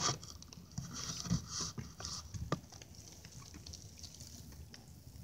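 Water dripping and lightly splashing beside a plastic kayak as a smallmouth bass is held at the surface and let go, with a few short knocks in the first half.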